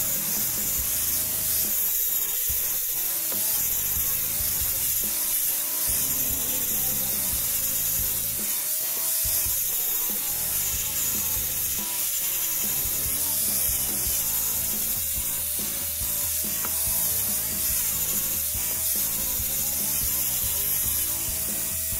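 Corded angle grinder with a sanding disc running and grinding against an oak egg shape. Its motor whine wavers up and down as the disc is pressed into the wood and eased off, over a steady hiss of abrasion.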